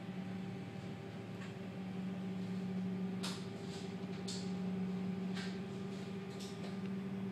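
Small double-drum asphalt roller's engine running with a steady hum, muffled through window glass. A few short sharp clicks come about a second apart.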